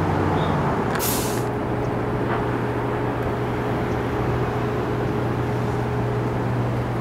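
A heavy vehicle idling with a steady low hum, and a short hiss of released air about a second in.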